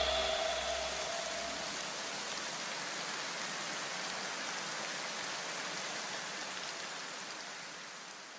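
A steady, even hiss like static, fading away near the end. The last held notes of the background music die away in the first second.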